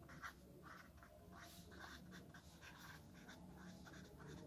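Pen writing on paper on a clipboard: faint, irregular short scratching strokes as words are written out.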